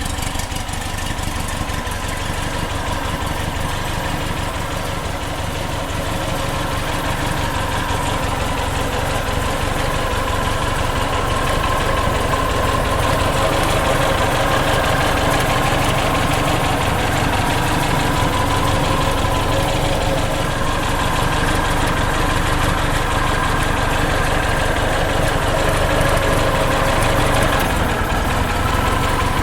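1968 Porsche 912's rebuilt air-cooled flat-four engine, with 86 mm pistons and cylinders and a Neutek SX-1 cam, running steadily, getting a little louder over the first dozen seconds.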